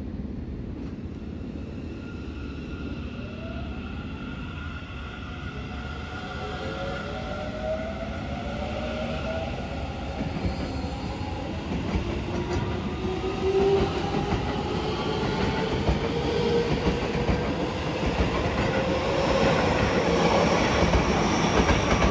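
Seibu 30000 series electric commuter train pulling away from a station. Its motor whine rises in several pitches at once as it gathers speed, and it gets louder throughout. Wheels clack over the rail joints near the end.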